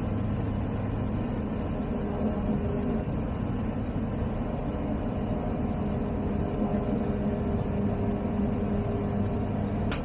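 The Zenith CH 701's ZD C100 flat-four engine (a 100 hp Rotax 912ULS clone) and propeller droning steadily in level flight, heard through the aircraft intercom.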